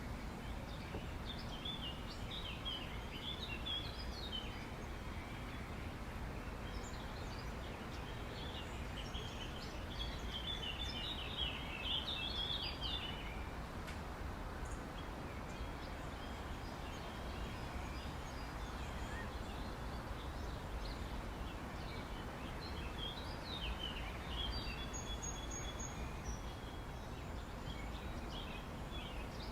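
Outdoor ambience: a steady background noise with small birds chirping and singing on and off, a busy flurry of calls about ten to thirteen seconds in.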